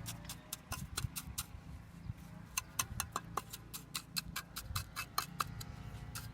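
Rapid, irregular sharp taps of a hard tool striking a hard surface, some with a short metallic ring, over a steady low hum.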